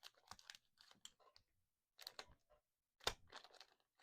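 Trading cards being handled: faint scattered clicks and rustles of card stock being flipped and slid, in several small clusters, the sharpest click a little after three seconds in.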